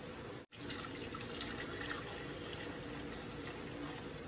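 Beef stock pouring in a steady stream into a frying pan of sautéed vegetables and reduced red wine, after a brief cut-out about half a second in.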